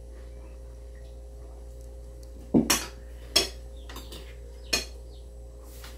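Cutlery clinking against plates at the table, a few sharp separate clinks between about two and a half and five seconds in, with a hum underneath.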